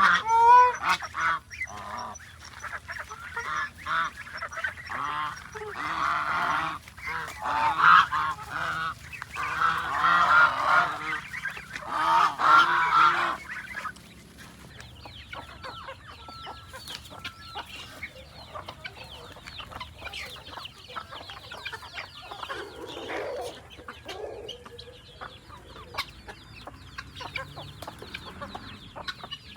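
Domestic geese honking loudly and repeatedly. About halfway through the honking stops and gives way to quieter clucking and peeping of chickens.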